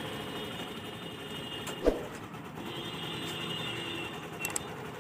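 A small engine running steadily, with a single sharp knock about two seconds in.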